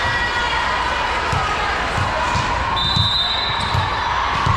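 Balls thudding irregularly on a gym floor, several bounces a second, over the steady hum of crowd talk in a large hall. A brief high-pitched tone sounds about three seconds in.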